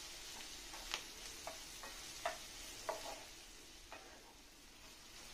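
Wooden spatula tapping and scraping in a non-stick frying pan as small onions, dried red chillies and garlic are stirred, over a faint sizzle of frying in oil. About five sharp taps come in the first four seconds, then only the sizzle.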